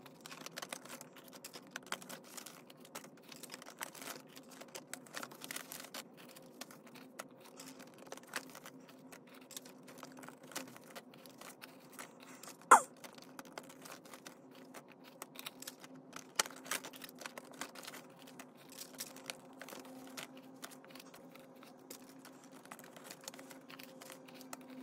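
Paper banknotes being pulled from a binder's plastic pockets and counted by hand: a quick run of crisp rustles, flicks and light clicks, with one sharper click just under halfway through.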